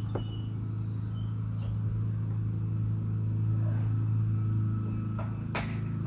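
A steady low mechanical hum, with a few light clicks near the end as a light fixture is handled and pressed into the body panel.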